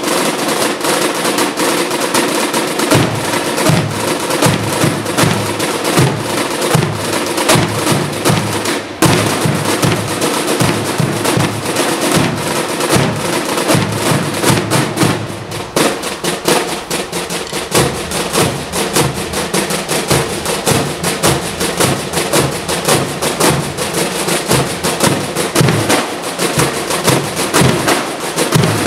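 A corps of drums playing a side-drum display: several rope-tensioned military side drums beating fast rhythms and rolls together, with deeper drum strokes underneath.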